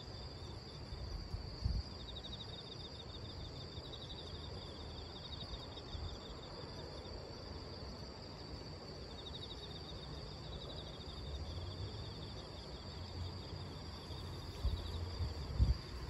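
Insects chirping in repeated high trills over a steady hiss, with gusts of wind rumbling on the microphone, louder near the end.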